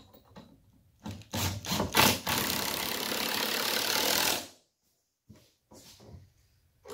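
Cordless impact driver driving a screw into wood: a few short triggers about a second in, then a steady run of about two seconds that stops abruptly.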